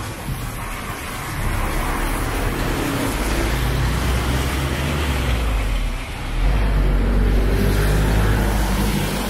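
Road traffic on a city street: motor vehicles passing with a deep engine rumble that swells about a second and a half in and grows louder again past six seconds, as a heavy vehicle goes by.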